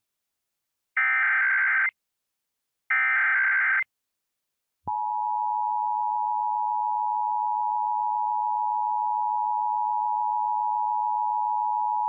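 Emergency Alert System SAME header: the tail of one burst of digital data tones, then two more buzzing bursts, each about a second long with a second's gap between. About a second after the last, the EAS two-tone attention signal starts, a steady, loud dual tone that marks the start of an alert.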